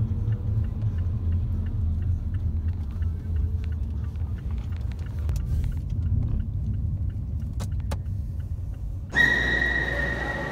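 Low, steady road rumble inside a moving car, with a few faint ticks. About nine seconds in it switches suddenly to a hall ambience with a steady high-pitched tone.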